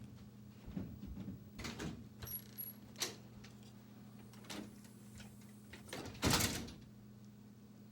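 Runny slime being squished and kneaded with freshly poured activator, giving scattered wet clicks and squelches, with a louder squelch about six seconds in. A steady low hum runs underneath.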